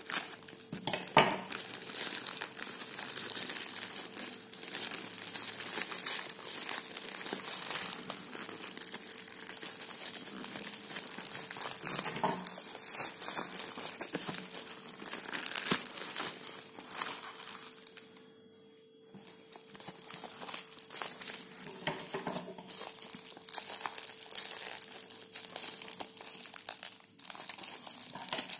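Plastic courier mailer and bubble wrap crinkling and rustling as hands cut open and unwrap a parcel, with scissors snipping through the plastic at the start. The crinkling stops briefly about two-thirds of the way through, then resumes.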